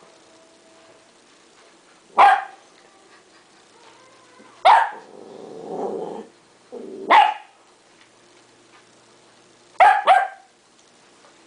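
West Highland White Terrier puppy barking in play: short sharp barks about every two and a half seconds, the last a quick double, with a low growl between the second and third barks.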